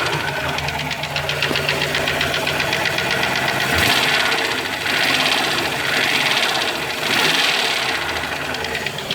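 2000 Ford Explorer's 5.0 V8 running with a fast, steady ticking from the engine, the sound swelling a few times. The engine has only just been got running again after the truck sat with a failed fuel pump, and the tick's cause is unknown.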